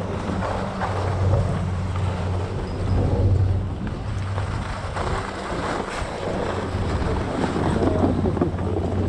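Skis sliding and scraping over packed piste snow, mixed with wind buffeting the helmet camera's microphone, over a low steady hum.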